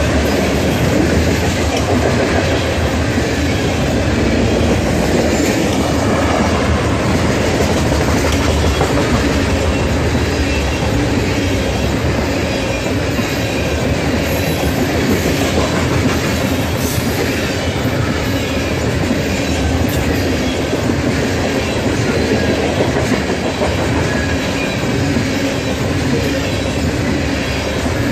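BNSF freight train of covered hopper cars rolling past at close range: a steady, loud rumble of steel wheels on the rails.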